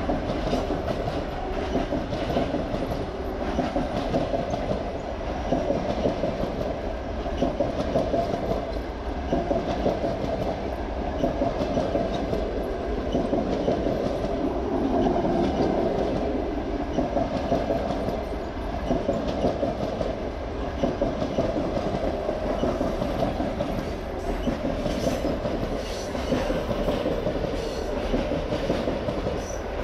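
Russian Railways passenger coaches rolling past, with a steady rumble and the wheels clacking over the rail joints in a repeating rhythm.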